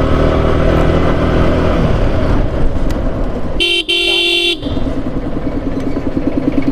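Vehicle engines running with a vehicle horn honking for about a second just past the middle, broken by a very short gap. A pulsing engine note follows.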